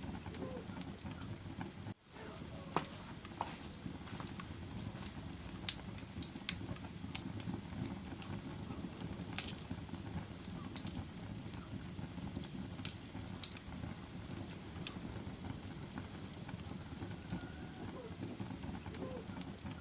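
Fire crackling: a steady low rush of burning with sharp pops and snaps scattered irregularly, one every second or so. The sound dips out briefly about two seconds in.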